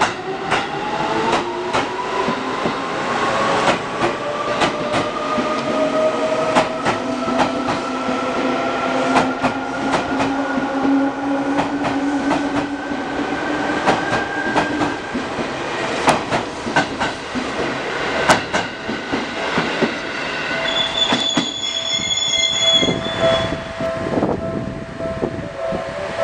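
Seibu 2000 series electric train pulling away: its traction motors whine, rising steadily in pitch for about fifteen seconds as it accelerates, with the clack of wheels over rail joints. Later a brief high tone sounds over the steady hum of a standing train.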